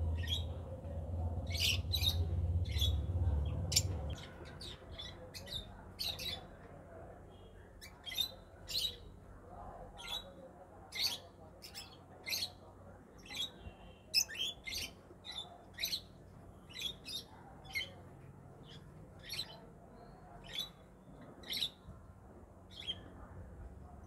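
Small caged parrots giving short, sharp, high-pitched squawking chirps, one or two a second, over and over. A low rumble runs under the first four seconds.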